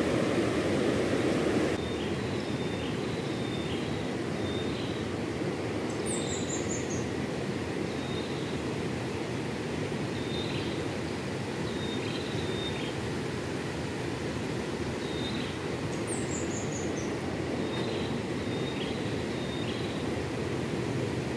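Steady rush of flowing river water, slightly louder for the first couple of seconds, with birds chirping over it: short high chirps throughout and twice a quick descending run of notes.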